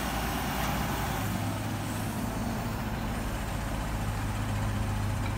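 Heavy truck diesel engine idling steadily, a low even hum.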